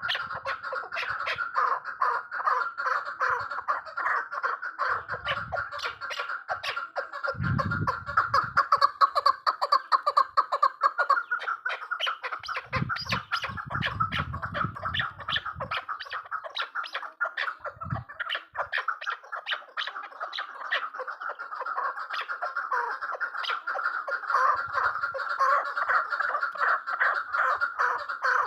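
Chukar partridge calling in a fast, continuous run of repeated clucking notes, loudest about a third of the way through. A few brief low thuds come in under the calls.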